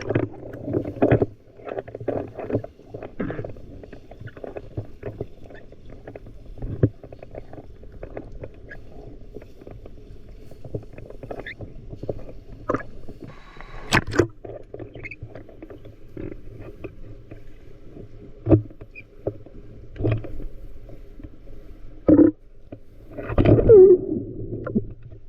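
Muffled splashing and sloshing of water from people bathing in a waterfall pool, dotted with small knocks, with a sharp knock about two-thirds of the way through and a louder splashy stretch near the end.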